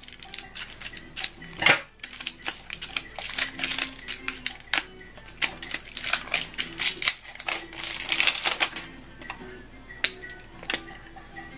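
Crackling and clicking of the plastic wrapper on a new PGBK ink cartridge as it is handled and peeled off, in quick irregular snaps, over soft background music.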